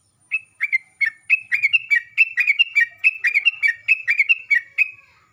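Sooty-headed bulbul (trucukan) singing a fast run of short whistled notes, about four a second, that step between two pitches. The run starts just after the opening and stops near the end.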